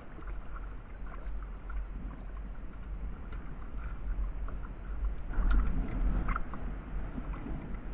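Water lapping and sloshing against a fishing kayak's hull, under a steady low rumble. A few knocks and rustles of the landing net being handled come about five to six seconds in.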